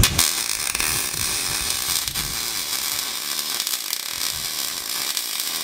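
MIG welding arc on aluminium, struck right at the start and running as a steady crackling hiss, the sound of a learner's practice weld bead in progress.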